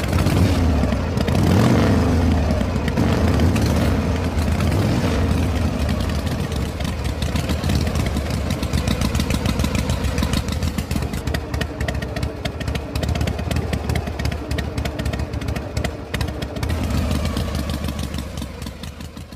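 Engine running steadily with a fast, even chugging rhythm, louder in the first few seconds and fading out near the end.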